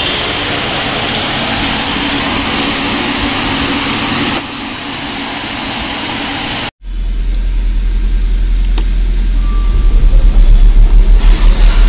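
Steady rushing fan noise with a faint hum. After a cut, air from the Maruti Ertiga's rooftop AC vents blows onto the microphone as a low, fluttering rumble that grows stronger near the end. The newly replaced blower motor is running smoothly, without its earlier noise.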